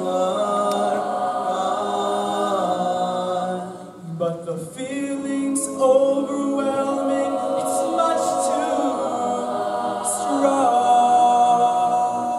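Mixed-voice a cappella choir singing held chords in close harmony. There is a short dip about four seconds in, then the chords resume with a few brief hissing consonants before the voices begin to fall away at the very end.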